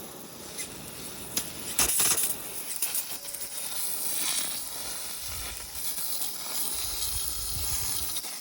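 Water hissing from a hose, spraying onto the tiller to wash it, with a few sharp clicks about one and a half to two seconds in.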